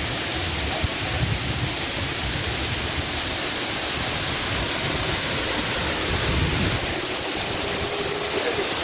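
Waterfall rushing close by in a steady, loud hiss, with occasional low rumbles underneath.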